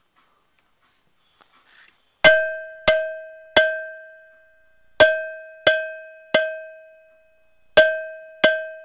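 Cowbell struck with a drumstick, starting about two seconds in: sharp hits in groups of three, about two-thirds of a second apart, each with a clear ringing tone that fades quickly.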